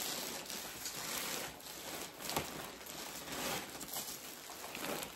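Packaging of a compressed pillow crinkling and rustling as it is handled, with a couple of light taps.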